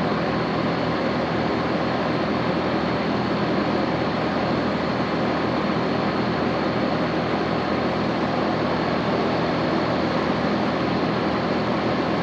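Central air-conditioning condensing unit running steadily: the condenser fan blowing air, with a steady low hum from the compressor underneath.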